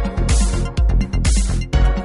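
Electronic dance music with a steady, heavy bass beat and bright hissing swells recurring over it.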